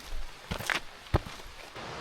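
Footsteps of a hiker walking on a trail, a few separate steps with the loudest about a second in. Near the end a steady rushing noise comes in abruptly.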